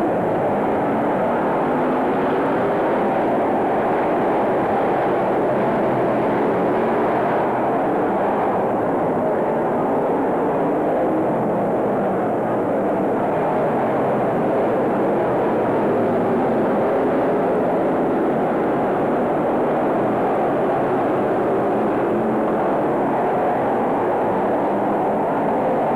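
Several stock-car engines racing around a short oval at full throttle, their overlapping notes rising and falling as the cars accelerate and lift through the turns.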